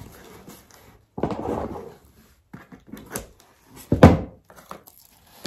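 Small cardboard box being pulled open by hand: a scraping rip of cardboard about a second in, a few light knocks, then a sharp thump about four seconds in, the loudest sound.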